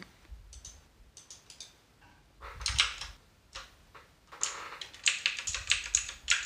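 Quiet, scattered light clicks and taps, growing denser over the last two seconds, like small buttons being pressed or a device being handled.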